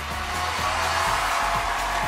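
Studio audience cheering and applauding over loud show music with a steady bass line; the crowd noise swells about half a second in.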